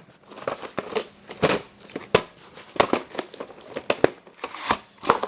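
A VHS tape and its plastic case being handled: a quick run of plastic clicks and crinkles.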